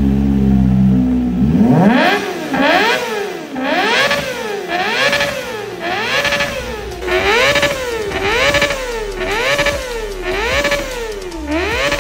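Kawasaki ZX-25R SE's 250 cc inline-four engine being revved in quick repeated blips, the pitch climbing and dropping back about once a second. The blips follow a steady lower engine note in the first second or so.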